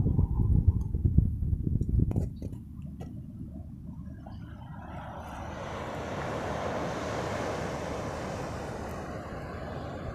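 Wind buffeting the phone's microphone for the first two seconds or so, then waves washing onto a coral-rubble beach, a soft hiss that swells and eases off in the middle.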